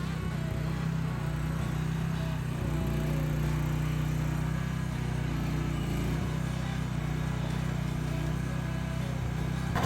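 An engine idling steadily at a constant speed, with a low, even hum and no change in pitch.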